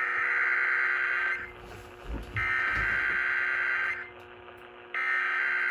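Emergency Alert System SAME header data tones: three harsh, buzzing bursts of digital data, each about a second and a half long with about a second between them. They open an EAS required weekly test.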